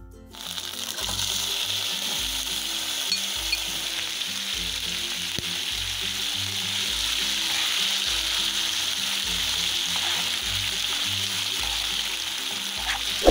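Pieces of marinated chicken breast sizzling in hot oil in a frying pan. The sizzle comes in within the first second as the chicken goes into the oil, then holds steady while the pieces are stirred with a spoon.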